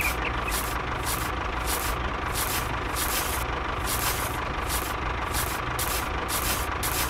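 A steady low engine drone like an idling truck, with a dry hiss repeating about twice a second over it.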